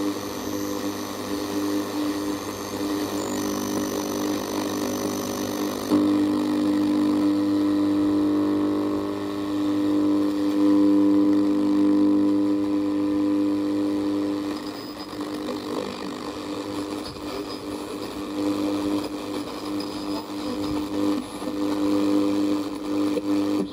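Sony CXA1619 radio receiver board playing through its speaker on the shortwave band: a steady drone of several held low tones over hiss. The tones change about six seconds in and again near fifteen seconds.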